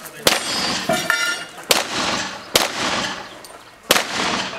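Pistol shots at a steady, unhurried pace, four in all about a second or so apart, each trailing off in echo.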